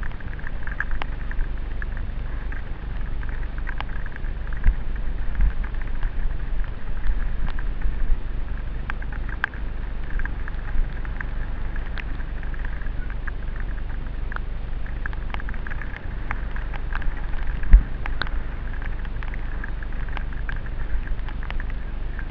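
Mountain bike riding fast down a rocky dirt trail, heard from a helmet-mounted camera: steady wind rumble on the microphone with a constant rattle and many clicks and knocks from stones and the bike's frame and parts, one sharp knock about eighteen seconds in.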